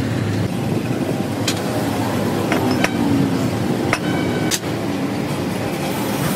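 Cut steel plates clinking and knocking a few times as they are set onto a welded steel frame, one with a brief metallic ring, over a steady background rumble.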